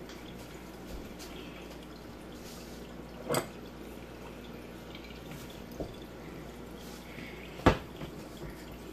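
A few sharp clicks or taps over a low, steady room background: one about three seconds in, a faint one later, and the loudest near the end.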